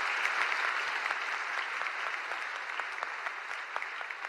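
Audience applause: dense clapping that slowly dies down.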